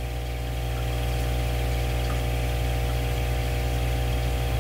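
Steady low mechanical hum of fish-room aquarium equipment, a little louder after the first second, then unchanging.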